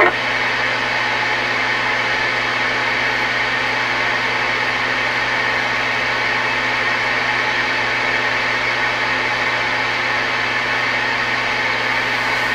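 Steady static hiss from a CB radio receiver's speaker, with a low steady hum underneath.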